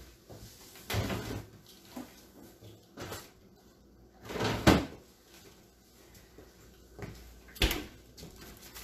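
Refrigerator door opened and food handled inside the fridge: a few separate knocks and handling noises, with a sharp knock near the end.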